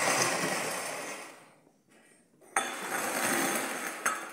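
Two stretches of rustling noise, each about a second and a half long, the second starting suddenly, with a short click near the end.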